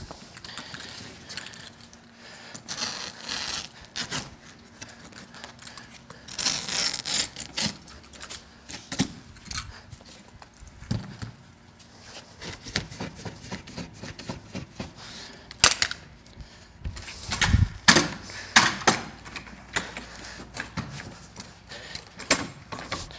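Carpet installation handling noise: scattered clicks, knocks and short scraping rustles as carpet is worked at a seam and a power carpet stretcher is set up, with a cluster of louder knocks a little past the middle.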